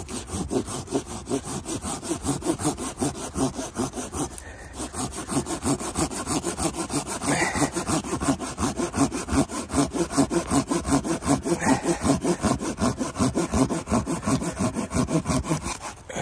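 Hand pruning saw cutting through a tree trunk with quick back-and-forth strokes, about three a second, the teeth rasping through the wood, with a short pause about four seconds in.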